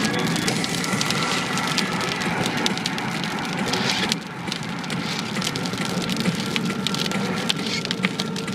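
Rain hitting the car's windscreen and roof as dense crackling ticks, over a steady hum of road and engine noise inside the cabin.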